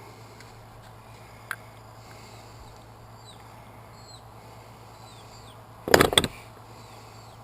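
A quick clatter of hard knocks about six seconds in, as the removed old starter motor and its new replacement are handled, with a single light click earlier. Faint bird chirps in the background.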